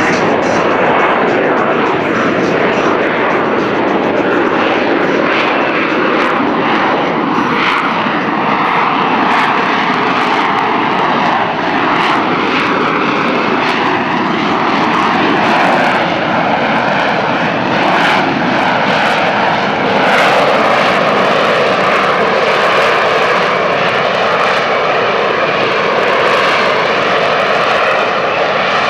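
AV-8B Harrier II's Rolls-Royce Pegasus turbofan running loud and steady, a jet roar with whining tones that slowly drift in pitch, growing a little louder about two-thirds of the way in.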